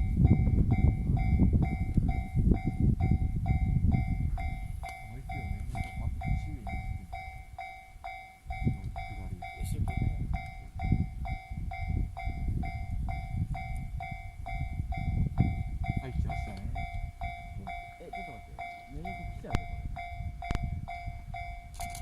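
Level-crossing alarm ringing steadily about twice a second while an EF64 1000-series electric locomotive and its empty engineering wagons pass. The train's rumble is loudest at first, drops briefly about eight seconds in, then comes back with a rhythmic clatter of wheels over the rail joints.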